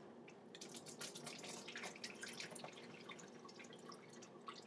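Faint, irregular trickling and dripping of noodle water poured off a tilted bowl of ramen into a stainless steel sink.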